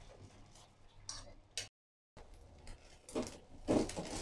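Utensils clinking and scraping in a small non-stick frying pan of beaten eggs: faint clicks at first, a brief dead-silent gap near the middle, then a spatula scraping and knocking against the pan as it breaks up the setting egg.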